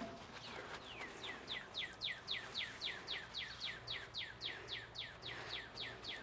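A bird calling in a long, fast series of repeated downward-sliding chirps, about three to four a second, starting about half a second in.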